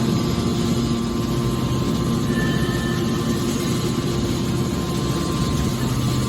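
Hydraulic scrap metal baler running: a steady machine drone with several held tones and no impacts.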